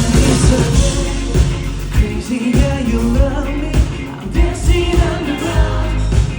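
K-pop song performed live through a hall's sound system, a male lead vocal singing over an upbeat backing track with a strong, steady beat.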